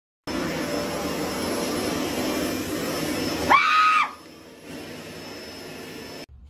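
Upright vacuum cleaner running with a steady whine. About three and a half seconds in, a woman lets out a short scream of fright, and right after it the vacuum sound drops much quieter.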